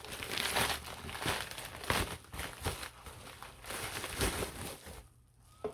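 Plastic packaging bag crinkling in irregular rustles as it is opened and handled. It stops about five seconds in.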